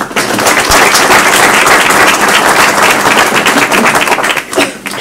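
Audience applauding: many people clapping together, dying away near the end.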